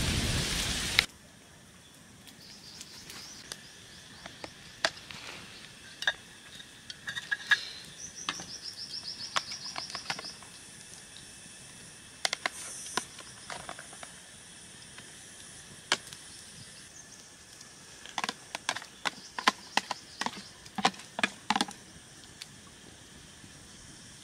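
Heavy rain that cuts off abruptly about a second in, followed by quiet outdoor ambience with scattered sharp clicks and taps, a brief rapid trill, and a short high chirp. A quick run of clicks and knocks comes near the end.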